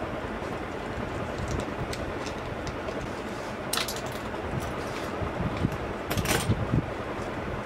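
Small clicks and crinkles of hands handling a micro quadcopter frame, its shrink wrap and small tools, over a steady hiss. The two sharpest clicks come just before four seconds in and at about six seconds.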